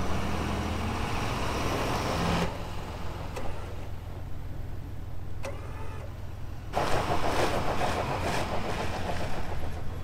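Ford Super Duty pickup's engine running at low revs as it reverses on snow, pulling on a recovery line hooked to its front end, with a steady low drone. The higher noise over it drops away for a few seconds in the middle.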